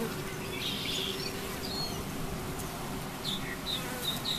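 Honeybee colony humming steadily in a top-bar hive; this is the queenright half of a split. A bird chirps briefly about a second in, then several times in quick succession near the end.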